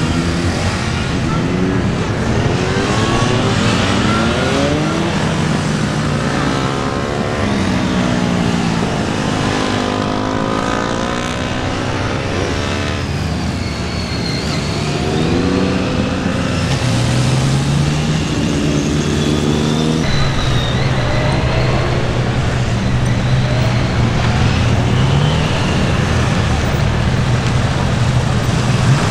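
Honda VTR250's V-twin engine being ridden round a slow, twisty practice course. Its pitch rises and falls over and over as the throttle is opened and closed through the left-right turns, and it holds steadier for a few seconds about two-thirds of the way in.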